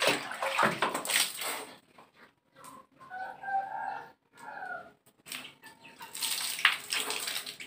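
Water scooped from a bathroom tub and poured out of a dipper, splashing onto a tiled floor, in two bursts: one at the start and one about six seconds in. Between them, a few short pitched calls.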